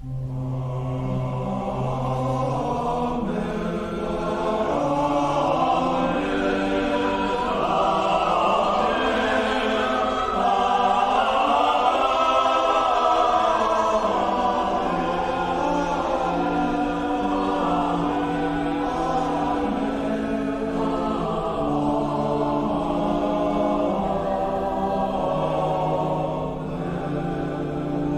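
A group of voices singing a hymn in slow, sustained notes over steady low held tones.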